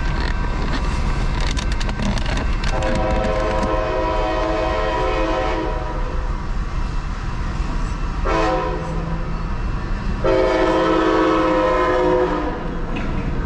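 Horn of a Siemens Charger locomotive on an Amtrak Capitol Corridor train sounding for a grade crossing: a long blast, a short one and another long one. Under it the crossing-signal bells ring rapidly, and near the end the train rolls through the crossing.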